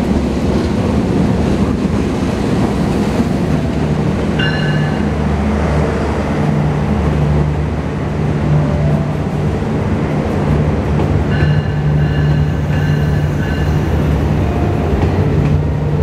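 A passenger train pulling slowly into a station close by: the GE CM20EMP diesel locomotive passes at the start, then its coaches roll past with a continuous rumble of wheels on rail and a steady low hum. Short high metallic squeals from the wheels come about four seconds in and again for a couple of seconds around twelve seconds in.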